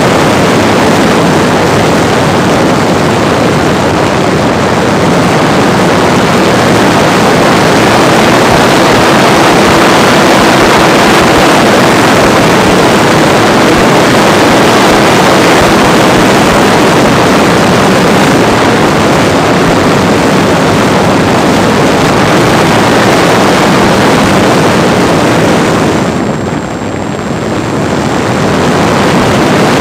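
Parkzone T-28D Trojan RC plane heard from a camera in its own cockpit in flight: loud, steady wind rush mixed with its brushless electric motor and propeller. The sound dips briefly a few seconds before the end, then comes back up.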